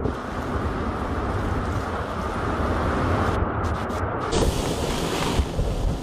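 Strong storm wind buffeting the microphone, a dense low rumble. A harsher, hissing gust comes in about four and a half seconds in and lasts about a second.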